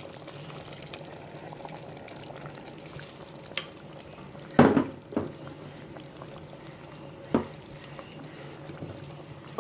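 Pot of curry chicken simmering on the stove with a low, steady sizzle. Four short sharp clatters sound in the pot as sweet pepper, scallion and carrots are added, the loudest about halfway through.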